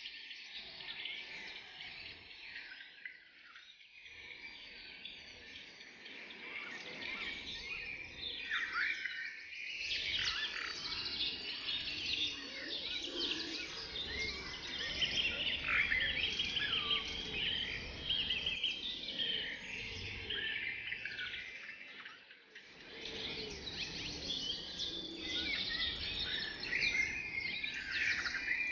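A chorus of many forest birds calling and singing at once, with dense overlapping chirps and trills. It briefly thins out about three-quarters of the way through, then picks up again.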